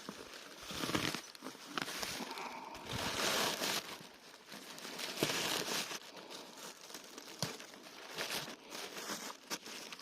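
Grass being torn and crunched in irregular crackly bursts, with a few sharp snaps.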